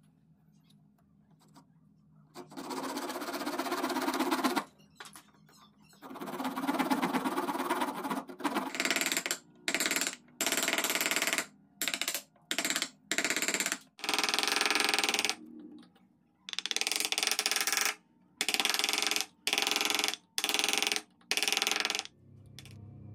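Hand tools cutting wood: a fine-toothed hand saw rasping through a small block in two long passes, then a run of short, abruptly broken scraping strokes as a chisel pares the wood.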